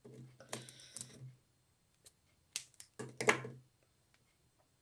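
Light clicks and rustles as a length of clear 0.45 mm nylon beading line is pulled out and handled, in two short clusters about half a second in and again around three seconds in.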